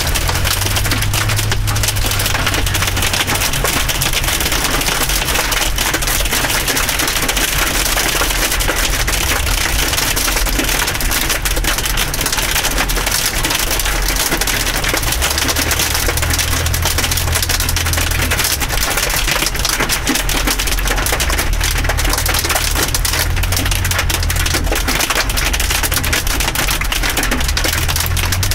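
Hail and heavy rain striking a car's roof and windshield, heard from inside the cabin: a loud, steady clatter of countless small hits. A low hum comes and goes underneath.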